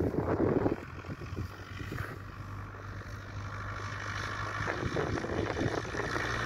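Single-engine propeller light aircraft at full power on its take-off roll: a steady engine-and-propeller drone that grows gradually louder.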